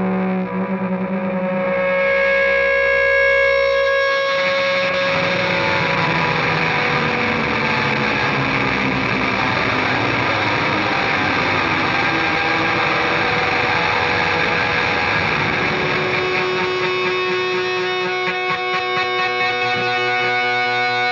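Electric guitar played through heavy fuzz distortion: a few held notes, then from about four seconds in a dense, sustained distorted wash. A pulsing wobble comes in near the end.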